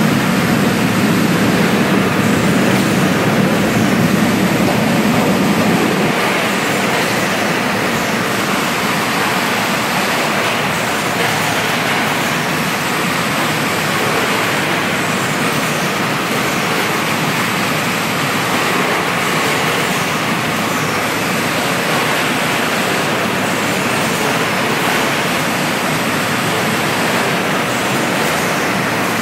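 Bottle production machinery running, a loud, steady, even rushing noise with no distinct beats or tones.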